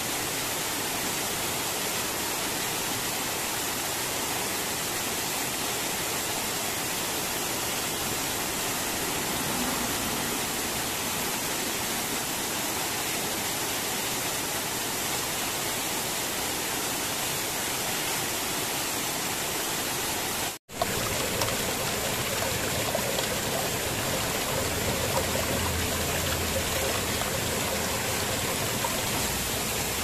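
Small waterfall splashing steadily over rocks into a shallow pool. About two-thirds through, the sound drops out for an instant and comes back as water running closer over stones, a little louder and more uneven.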